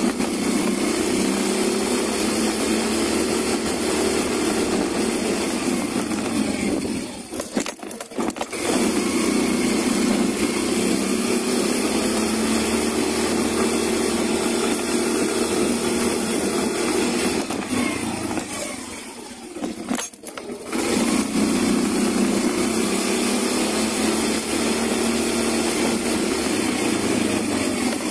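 Yamaha Mio i125 scooter's single-cylinder engine running at raised revs in three long stretches, dropping back briefly twice, as a test for leg shield vibration and rattle.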